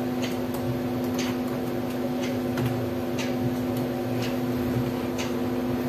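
Room tone: a steady low electrical hum with faint sharp ticks about once a second.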